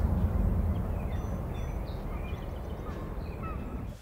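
Outdoor night ambience: a steady low rumble with scattered faint, short chirps and calls of small animals above it. The rumble eases slowly.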